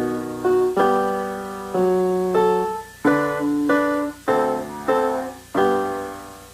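Piano playing a slow passage of full chords, each struck and left to ring and fade before the next.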